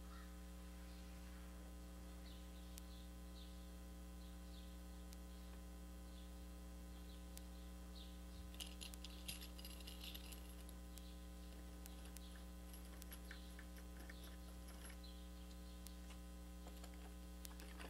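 Steady low electrical mains hum, with faint scraping and clicking from hand work on a window screen frame about eight seconds in and again near the end.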